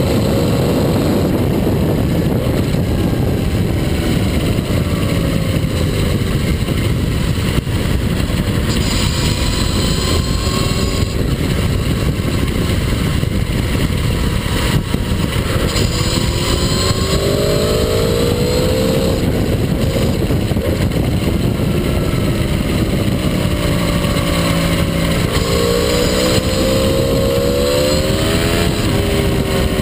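Aprilia Tuono V4R's V4 engine under way, heard through a steady loud rush of wind and road noise; its note rises and falls several times, most clearly in the second half, as the rider opens and closes the throttle through the bends.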